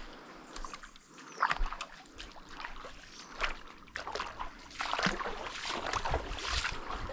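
Water splashing and sloshing around a kayak as it is paddled, in irregular strokes.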